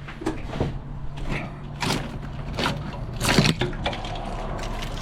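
Irregular clicks, knocks and light clatter of hands handling engine parts and wiring connectors, about six sharp strikes over a steady low hum.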